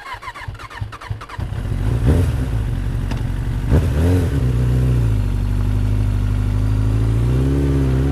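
Motorcycle engine revving: it builds over the first two seconds, blips up about two and four seconds in, then holds a steady rev that climbs slightly near the end.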